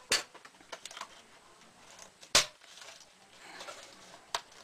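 Plastic hinge cover of a Dell Inspiron E1705 laptop being pried off with a cloth-wrapped flathead screwdriver: sharp clicks as its clips snap loose. One click comes just after the start and a louder one a little over two seconds in, with small ticks of plastic and tool between.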